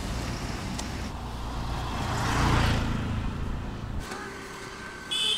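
Street traffic: a motor vehicle passes close by, its engine and tyre noise swelling to a peak about two and a half seconds in and then fading. A short high beep comes near the end.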